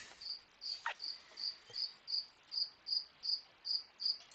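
Cricket chirping steadily: short, high chirps at an even pace of about three a second. A faint click comes about a second in.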